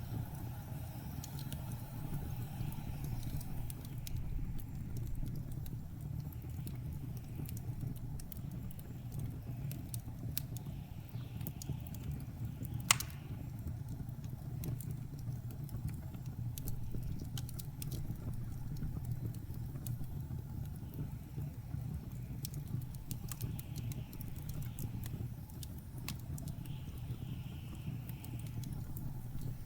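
Wood fire crackling in a fireplace, with scattered small pops and one loud pop about 13 seconds in, over a steady low rumble of blizzard wind.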